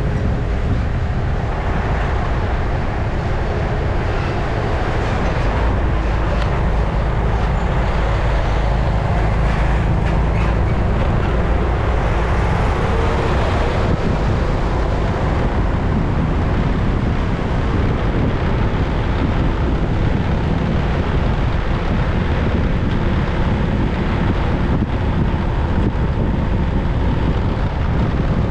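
Steady wind rush and road noise from a moving motorbike, a loud, even rumble heaviest in the low end, with no let-up.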